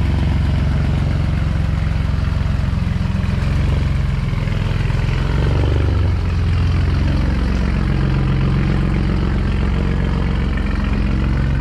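Ford AU Falcon's engine idling steadily, with a brief wavering in pitch around the middle.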